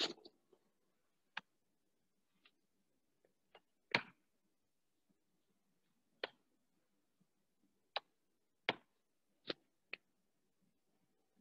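Slow, scattered keystrokes on a computer keyboard: about ten separate sharp clicks at irregular spacing, the loudest about four seconds in.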